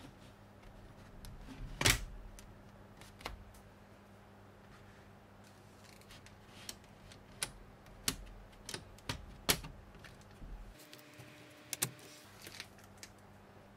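Plastic LEGO modules clicking and knocking together as they are pushed into place on their connector pins: scattered sharp clicks, the loudest about two seconds in, then a run of clicks between about six and ten seconds and a couple more near the end.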